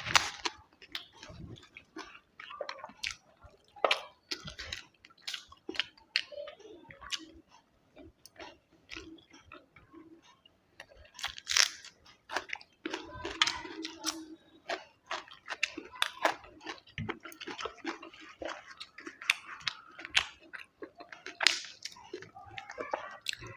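Close-miked chewing of food: irregular sharp crunches and bites, with a few louder crunches scattered through.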